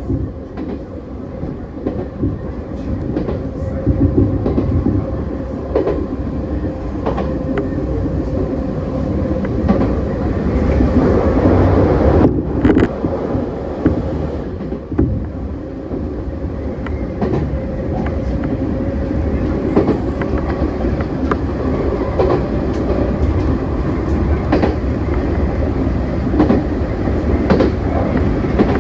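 Izukyu Line train running on the rails: a steady low rumble with a constant hum and a scatter of sharp wheel clicks.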